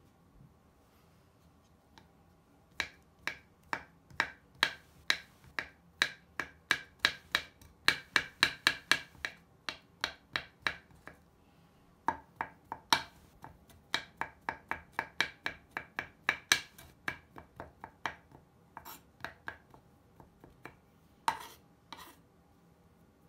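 Kitchen knife chopping a pressed Lush bubble bar on a wooden cutting board: quick runs of sharp taps as the blade cuts through the crumbly bar and strikes the board, with a brief pause about halfway and two louder chops near the end.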